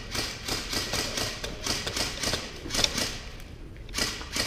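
Airsoft electric rifles firing single shots, a rapid irregular string of sharp cracks at about three a second.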